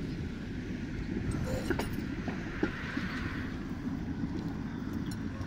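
Konstal 105Na two-car tram set running past on the loop track: a low rumble of wheels on rails, with a few sharp clicks and a hiss that swells about halfway through.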